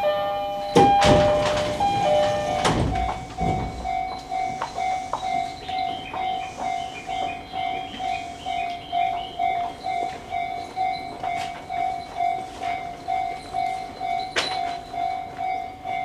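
A repeating electronic chime pulsing a little more than once a second while a train stands at a station platform. A two-note chime and a few sharp knocks come in the first couple of seconds, and another knock near the end.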